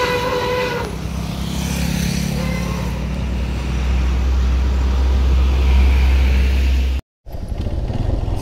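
A short horn note at the start, then a heavy bus diesel engine running, growing louder as it approaches. The sound drops out completely for a moment about seven seconds in, then the engine carries on.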